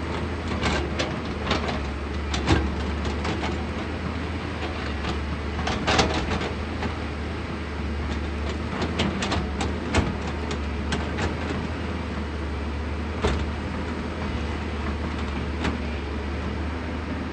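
JCB 215 excavator's diesel engine running steadily, with scattered sharp knocks and clanks, the loudest about 2.5, 6, 10 and 13 seconds in.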